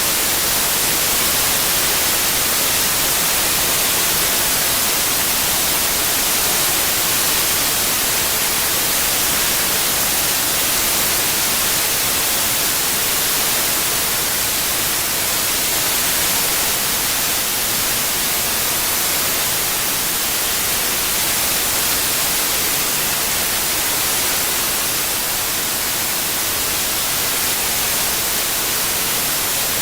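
Generated white noise: a steady, even hiss, strongest in the high register, with no changes or events.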